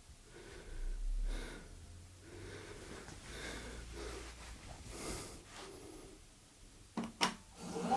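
Quiet breath-like puffs about once a second, with faint handling noise, then two sharp clicks about seven seconds in.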